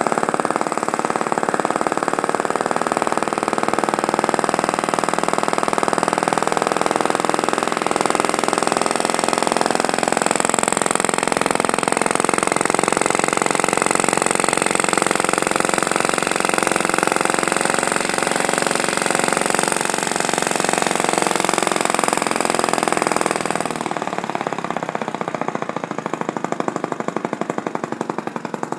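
Miniature brass flame-eater (vacuum) engine running fast, its flame-gulping cylinder and flywheel making a loud, steady rapid chatter. Near the end it turns a little softer and its separate beats come through.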